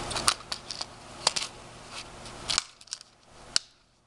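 Handling noise from a Leatherman Surge multi-tool and its sheath: a few sharp clicks and light rustling as the tool is fitted into or taken out of the pouch. The rustling fades out near the end, leaving one last click.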